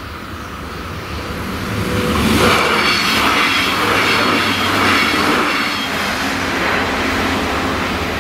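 NordWestBahn diesel multiple unit (Alstom Coradia LINT) passing over a level crossing: engine and wheel rumble build over the first two seconds, stay loud for a few seconds with a high ringing note over the rumble, then fade as the train moves away.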